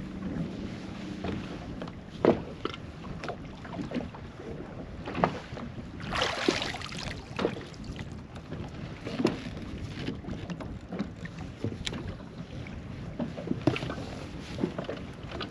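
Boat noises on the water: scattered irregular knocks and splashing over a noisy background, with a louder rushing burst about six seconds in and some wind on the microphone.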